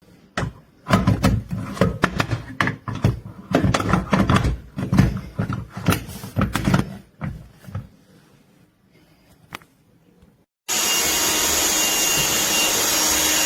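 A run of irregular knocks and clatter, then a few seconds of near quiet, then a Black+Decker Dustbuster cordless handheld vacuum switching on abruptly near the end and running steadily with a thin high whine.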